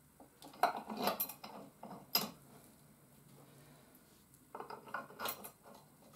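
Metallic clinking of bolts being handled and fitted through a pair of stacked brake discs on a tractor wheel rim. The clinks come in short clusters: about a second in, once around two seconds, and again a second before the end.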